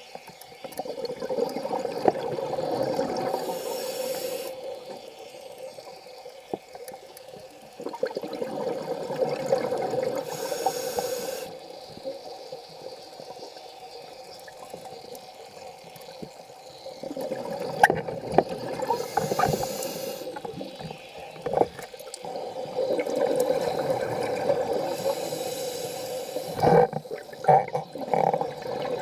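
Scuba regulator breathing heard underwater: four long stretches of bubbling exhalation with quieter pauses between, each breath carrying a short hiss.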